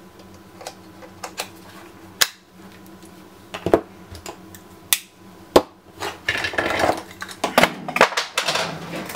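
Hard plastic clicks and clatter as interchangeable plug adapters are clipped onto and off a plastic plug-in power supply and set down on a desk, with a spell of rustling in the last few seconds.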